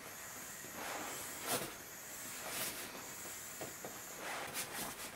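Air hissing steadily out of the open valve of an OEX Evolution Prowl XL self-inflating sleeping pad as it is rolled up tight to deflate it, with short rustles of the pad's fabric being pressed and folded.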